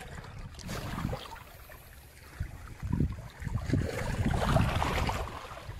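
Wind rumbling on the microphone with water washing over rocks at the shoreline, growing louder in the second half.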